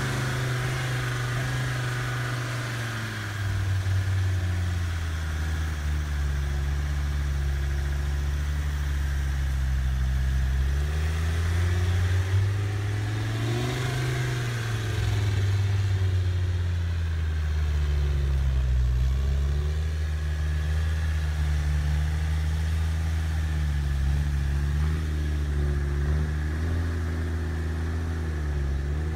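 Low engine drone from RC scale 4x4 off-road trucks driving, its pitch stepping and gliding up and down with the throttle, with a brief rise and fall near the middle.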